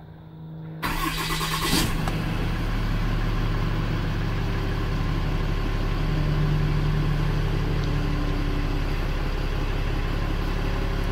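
A 2016 Ram 5500's 6.7-litre Cummins turbo-diesel, heard from inside the cab, cranks and catches about a second in, then settles into a steady idle. It keeps running rather than dying, a sign that the fuel system was properly primed after a fuel filter change.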